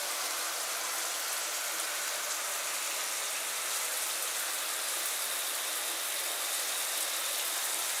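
Handheld shower head running, its fine spray from many small nozzle holes making a steady hiss of falling water.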